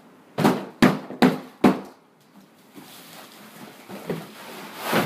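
Four quick, loud thumps about 0.4 s apart, like blows on a table, then the rustle of a tablecloth being dragged and bunched up, and another thump near the end.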